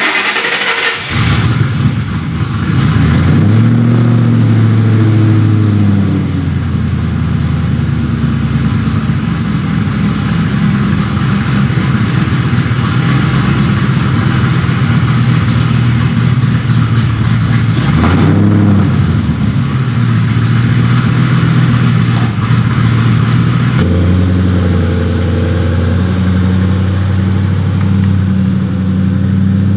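A 2005-10 Mustang GT's 4.6-litre three-valve V8 starting for the first time after a Ford Performance intake manifold and twin 62 mm throttle body swap: it catches at once, holds a fast idle that settles over the next few seconds, then idles steadily. There is a short rev about 18 seconds in, and near the end the engine note steps higher and louder and stays there.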